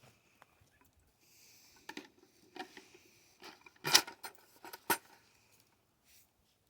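A handful of sharp clinks and rattles, like small hard or metal objects knocking together, the loudest about four seconds in and another just before five seconds.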